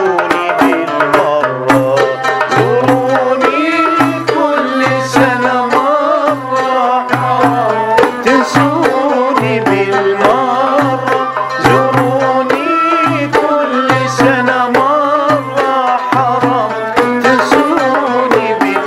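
Iraqi maqam ensemble music: oud and ney over a steady hand-drum rhythm, with a male voice singing an ornamented melody.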